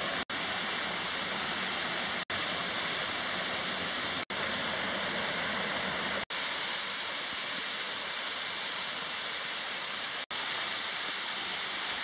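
Waterfall cascading over rock ledges into a pool, a steady rushing of water. Very short silent gaps cut into it about every two seconds.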